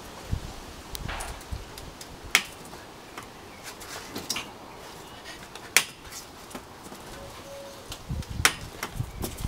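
Scattered sharp clicks and taps with a few soft low thumps as a Dalmatian puppy clambers about on a folding sun lounger, its paws and claws knocking on the lounger's frame and fabric. The three loudest clicks fall about two, six and eight and a half seconds in.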